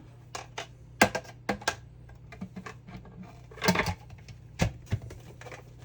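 Hard plastic parts of a Riccar R70 floor washer clicking and knocking together, irregular taps with a short flurry of clatter near the middle, as a removable part is handled and pushed into place.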